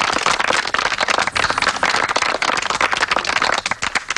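A group of people applauding: dense clapping that thins out into scattered separate claps near the end.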